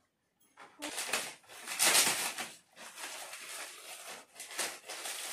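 Shiny metallic gift wrap crinkling and rustling as it is pulled and torn off a present, starting about a second in.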